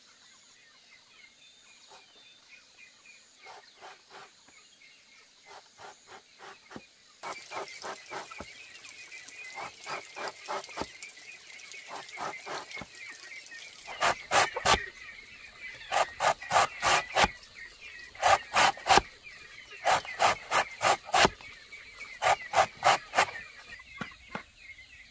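A blade chopping into a green bamboo log, in quick bursts of three to six sharp blows with short pauses between. Before that come lighter, scattered taps.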